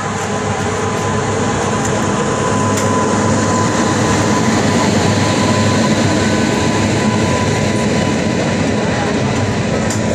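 Two passenger trains passing each other on adjacent tracks, heard from an open coach window: a loud, steady rush and rumble of wheels and coaches. It grows louder over the first few seconds as the oncoming train, hauled by a WAP7 electric locomotive, draws alongside.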